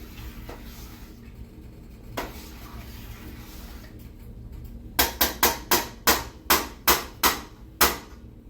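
A cooking utensil knocked sharply against a metal pot, about a dozen quick raps at roughly four a second, starting about five seconds in, after one lone knock earlier.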